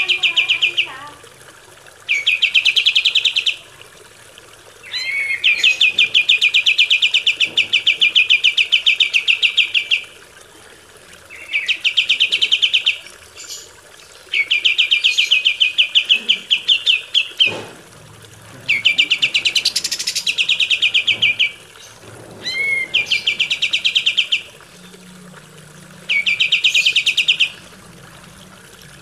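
Kapas tembak bird singing rapid, rattling trills. They come in repeated bursts of about one to five seconds with short pauses between, and a few brief upward-gliding notes mixed in.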